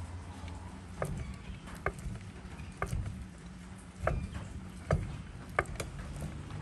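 A series of sharp, hard knocks, about one a second, over a low steady hum.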